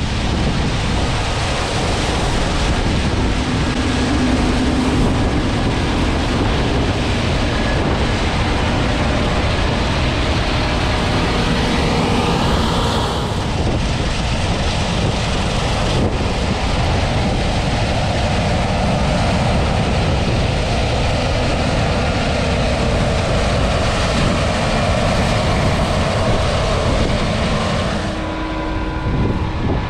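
Fendt Ideal 8 dual-rotor combine harvester running steadily, heard through heavy wind buffeting the microphone.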